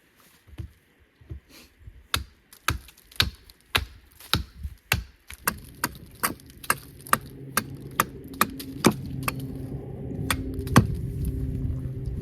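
Repeated sharp blows of a tool on wood, about two a second, as in chopping or hammering wood. From about the middle, a low steady hum grows louder underneath, like an engine approaching in the distance.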